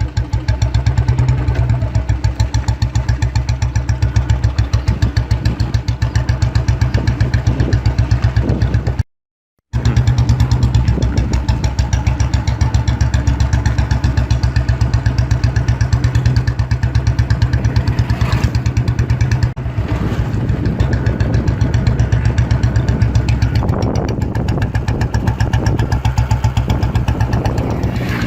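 Royal Enfield Bullet Electra 350's cast-iron single-cylinder engine idling with a steady, even thump. The sound drops out for under a second about nine seconds in.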